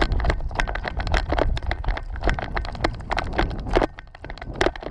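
Running footsteps on a dirt track, three to five quick thuds a second, with the rattle of carried gear and a low rumble underneath. It grows quieter near the end.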